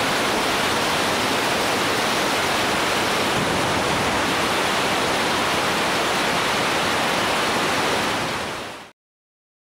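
Steady, loud rush of wind over the microphone of a motorcycle-mounted 360 camera at riding speed, with no engine note standing out; it fades out near the end.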